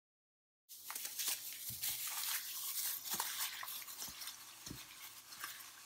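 Raw chicken pieces being mixed with a soy sauce and corn starch marinade in a bowl: a steady wet squishing and stirring with small clicks, starting about a second in.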